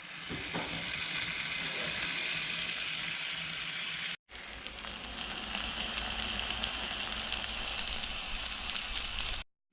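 Marinated pork sizzling and spitting in a hot cast-iron frying pan, a dense steady hiss with fine crackles. The sound drops out for a moment about four seconds in and then carries on.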